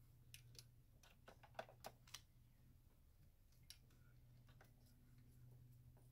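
Faint, sharp metallic clicks of a hand tool and bolt knocking against the engine's EGR valve mounting as the bolt is fitted by hand. A quick cluster of several clicks comes about one and a half to two seconds in and a single click just under four seconds in, over a low steady hum.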